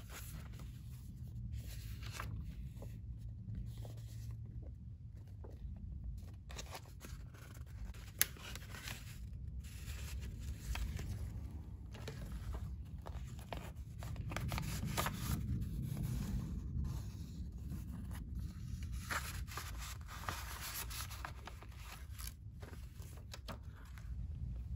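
Handmade paper folder being handled and its paper and vellum pages turned: irregular rustling and scraping of paper, with one sharp click about a third of the way through.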